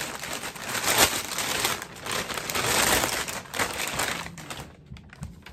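Thin black plastic mailer bag crinkling and rustling as hands pull it open and rummage inside it, in several loud surges that die down near the end.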